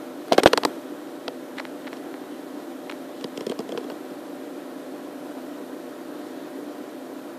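A steady mechanical hum, like a fan running. There is a loud handling bump on the recording device about half a second in, and a few faint clicks after it.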